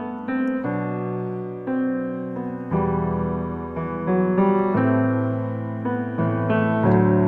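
Solo piano playing the song's introduction: held chords changing every second or two, growing a little louder through the passage.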